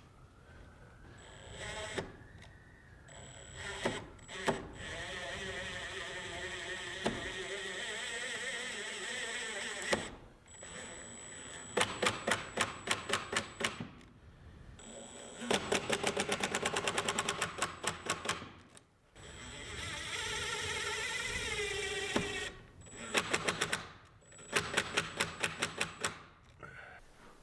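Cordless impact driver driving screws in several runs. The motor spins up with a rising whine, then breaks into rapid, even clicking hammering as each screw tightens, and winds down between runs.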